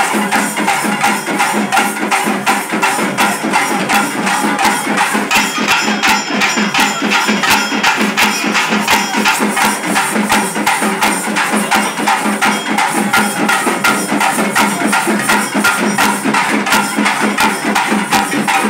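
Live percussion: frame drums beaten in a fast, steady rhythm, with a jingling, tambourine-like edge.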